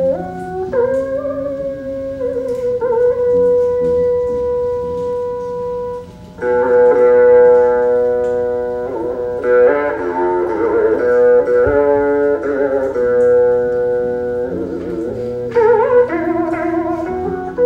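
Vietnamese đàn bầu monochords in duet, the regular đàn bầu with a bass đàn bầu, playing a slow melody of plucked harmonic notes that slide and waver as the pitch rod is bent. After a brief dip about six seconds in, the sound thickens into a fuller, denser texture.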